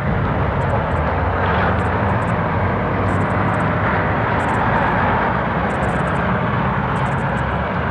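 Loud, steady rumbling noise with a hiss over it, and brief faint high rattles recurring every second or so.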